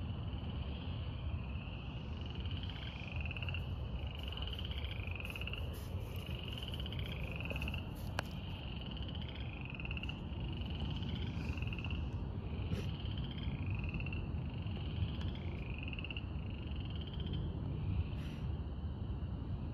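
A chorus of night-calling animals: trilled calls about a second long, repeating almost without a break, with two callers at slightly different pitches alternating, over a steady low rumble.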